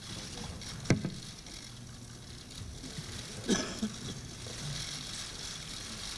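Steady hall ambience with a low hum, broken by one sharp knock about a second in and a short clatter of handling noise around the middle.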